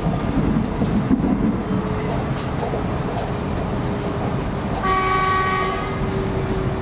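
Running noise inside an X'trapolis 100 electric multiple unit carriage as it travels along the track. About five seconds in, a steady tone of several notes starts suddenly and holds.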